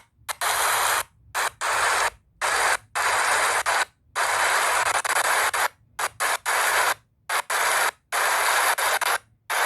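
Recorded rain sound from a relaxation video playing as an even hiss, cutting out abruptly about a dozen times at irregular intervals, each gap a brief silence before the hiss resumes.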